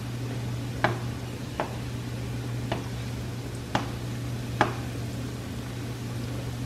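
Hot oil sizzling steadily around batter-coated quail eggs deep-frying in a nonstick pan, with a slotted spatula knocking against the pan five times. A steady low hum runs under it.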